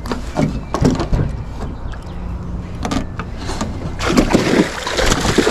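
Camera handling noise on a wooden dock: scattered knocks and clothing rustle close to the microphone over a steady low rumble. From about four seconds in the rustling turns into a louder, continuous scrape.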